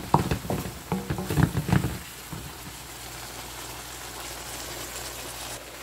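A wooden spatula stirring vegetables in a wok, with knocks and scrapes in the first two seconds. After that the vegetables sizzle steadily as they fry.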